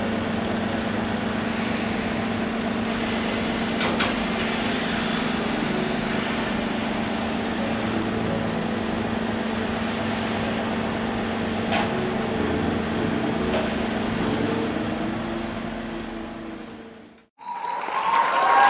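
Forklift engine running steadily with a constant hum, with a couple of short knocks from the load being handled. It fades out near the end and gives way to a brief logo sound with sweeping tones.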